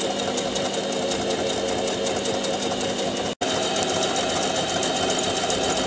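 Singer Facilita Pro household sewing machine running steadily under the foot pedal, sewing a decorative half-moon stitch. The sound cuts out for an instant a little past halfway.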